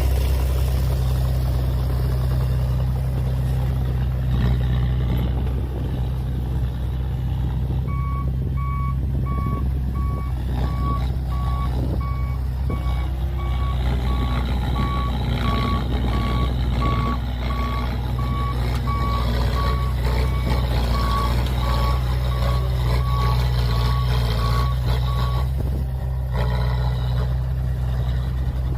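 Heavy diesel construction machinery running with a steady low drone, and a reversing alarm beeping at an even pace, about one and a half beeps a second, from about eight seconds in until shortly before the end.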